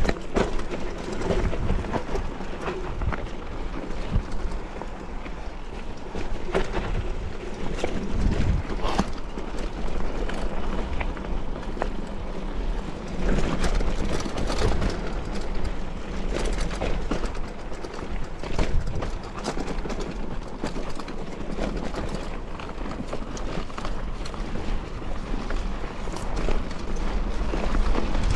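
Wind rushing over an action camera's microphone during a bike ride, with a steady low rumble and frequent irregular rattles and knocks.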